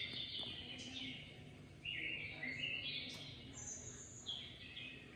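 Small birds chirping faintly: a string of short, high chirps repeating on and off.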